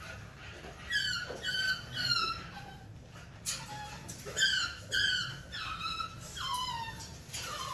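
Exotic bully puppy whimpering: a string of about ten short, high whines, each falling in pitch.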